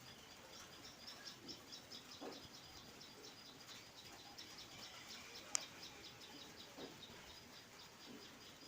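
Faint, rapid high-pitched chirping, repeated evenly about five times a second, with one sharp click about five and a half seconds in.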